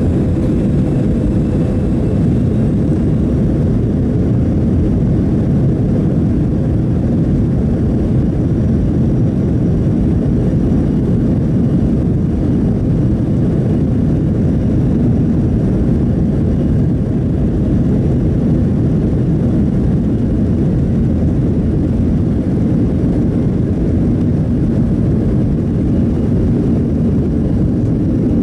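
Jet airliner's engines and cabin noise heard from a window seat over the wing: a steady, loud low rumble as the aircraft rolls along the ground.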